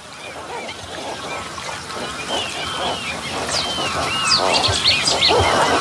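A colony of greater flamingos calling: a dense chatter of many overlapping calls that grows steadily louder, with short higher whistling glides mixed in from about two seconds in.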